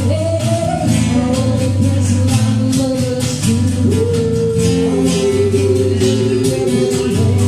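Acoustic pop song: singing over plucked string accompaniment, with light percussion keeping a steady beat.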